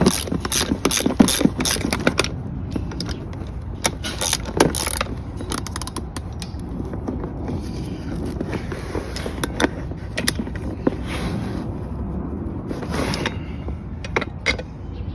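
Hand tools on brake hardware: a ratchet wrench clicking in quick runs, with scattered metal clinks and knocks of the parts being fitted.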